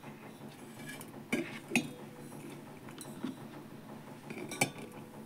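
Raw eggs being set one at a time into a stainless steel pot, with a few light taps and clinks of shell against the steel and against the eggs already in it. The sharpest clink comes near the end.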